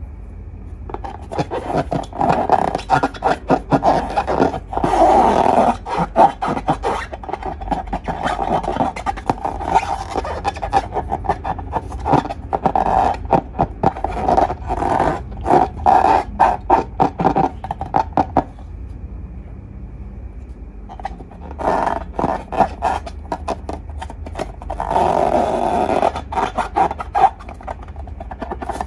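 Glossy slime being squished and stretched by hand: rapid runs of wet clicks and pops. The handling pauses for a few seconds past the middle, then starts again near the end.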